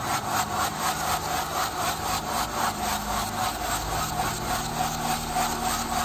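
Wobbling ceiling fan on a double downrod running with a low motor hum and a regular scraping rub, about five beats a second.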